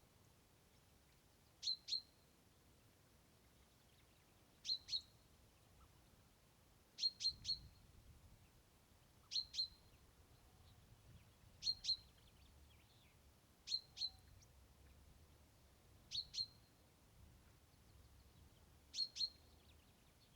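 A bird repeating a short, sharp high call in quick pairs of notes (once three), about every two and a half seconds, over a faint low background.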